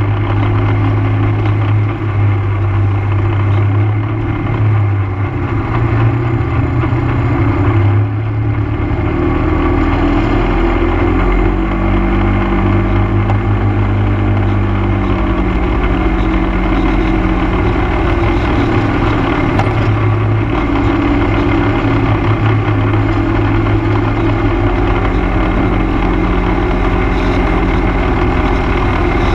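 ATV engine running steadily while riding along a paved road, with road and wind noise; the engine pitch dips and rises slightly partway through.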